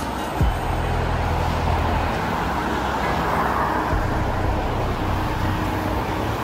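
Steady road traffic: cars passing on a wet multi-lane city street, tyre hiss and engine noise.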